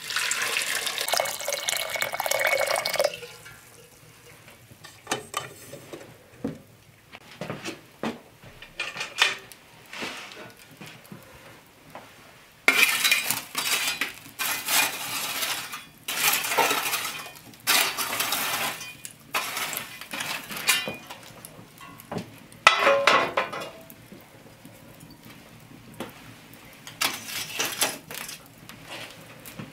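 Water poured from a metal kettle into a tin pot for about three seconds. This is followed by scattered metal clinks and a run of loud scraping as hot coals are raked across a stone hearth with an iron tool.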